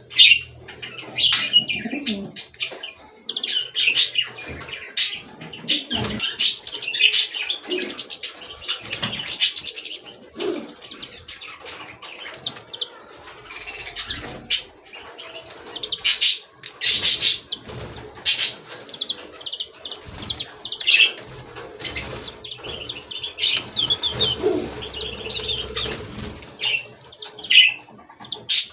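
Small wild songbirds chirping in short irregular calls, with repeated bursts of wing-flapping throughout.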